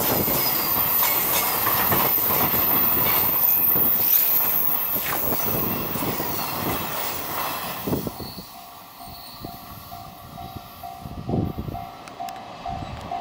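Freight container wagons rolling past close by, wheels clattering and squealing on the rails, the noise falling away after about eight seconds as the train pulls off. Then a level-crossing alarm goes on sounding a repeating tone, about two beats a second, with a few clanks from the receding wagons.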